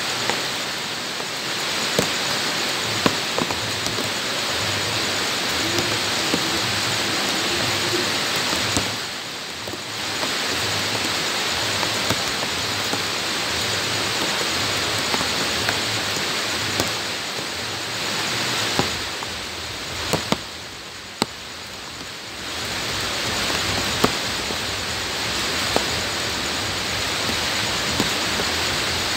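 Steady rain falling on wet bare ground and shallow puddles, with scattered sharper drop splashes. The hiss dips briefly twice, about nine seconds in and again around twenty seconds.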